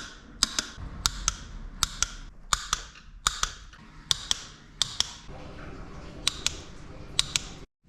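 A ratchet wrench running down 13 mm bolts. It gives sharp clicks in quick pairs, one pair with each back-stroke, about every 0.7 s. The clicking pauses briefly near the end and then resumes.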